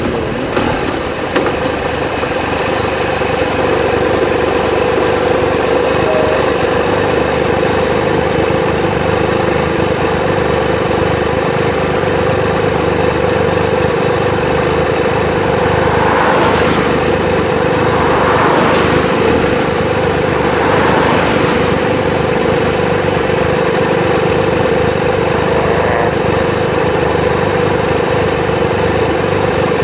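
Triumph Explorer 1200's three-cylinder engine running at a steady speed, a steady hum over a haze of wind and road noise. Three brief rushing swells of noise pass about two-thirds of the way through.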